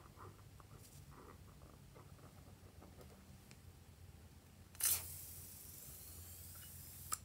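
Small scissors snipping through the rubber tip of a slime-filled balloon: one sharp snip about five seconds in, followed by a high hiss that fades over about two seconds, and another short click near the end. Before the snip there is faint rubbery handling of the balloon.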